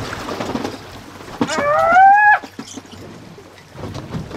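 A man's single drawn-out wordless shout, rising in pitch and lasting about a second, about a second and a half in, over steady wind and water noise on an open boat. A few short knocks follow it.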